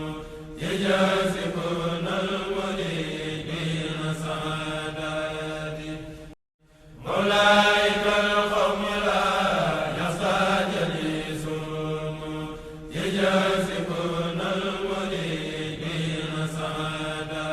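Religious chanting by several voices in unison, in long sustained phrases, typical of the Mouride khassida recitation heard at the Magal of Touba. It breaks off briefly about six seconds in, then resumes.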